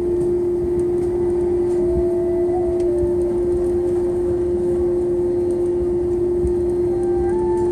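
Airbus A330 cabin noise while taxiing after landing: a steady rumbling drone with a constant hum running through it. Faint music with a slow melody plays over it.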